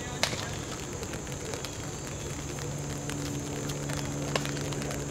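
Steady outdoor background hiss with faint crackling, a sharp click just after the start and a smaller one near the end; a faint low hum comes in about halfway through.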